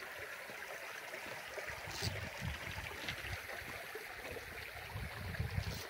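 Creek water running, a steady rushing, with irregular low rumbling from about two seconds in.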